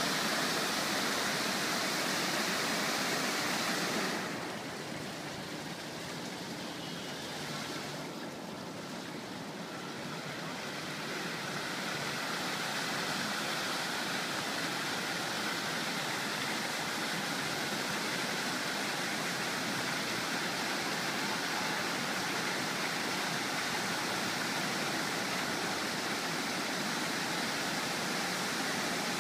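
Plaza fountain's many water jets splashing down into the basin: a steady rush of falling water. It drops quieter and duller about four seconds in and comes back up after several seconds.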